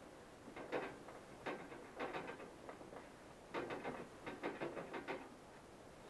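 A rag rubbing along a dock power cord in several short bouts of strokes, scrubbing black grime off the cord's jacket with gritty pumice hand cleaner.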